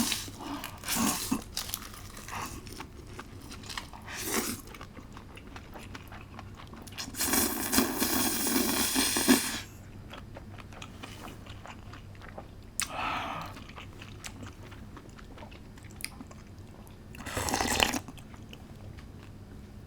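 Close-miked eating of spicy mixed noodles with crunchy old cucumber: separate crunching bites and chewing, about five bursts, the longest and loudest about two seconds long in the middle.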